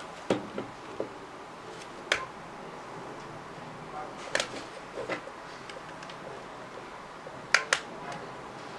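Plastic digital alarm clock being handled: scattered short clicks and knocks from its case and buttons, about nine or ten, the loudest a close pair near the end, over a steady low hiss.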